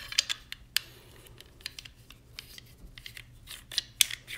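Irregular light plastic clicks and taps as a plastic nut is threaded by hand back onto a toilet flush handle's shank, with the sharpest click near the end.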